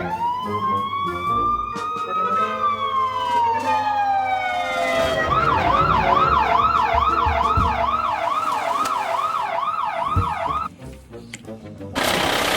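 Police car siren in a slow wail, rising then falling, then switching to a fast yelp of about two and a half sweeps a second that cuts off suddenly near the end. A loud rough noise starts just before the end.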